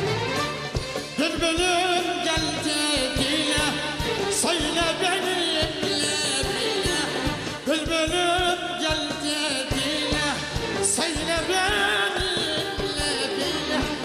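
Slow, ornamented Turkish-style singing with heavy vibrato over instrumental accompaniment, held notes winding up and down without clear words.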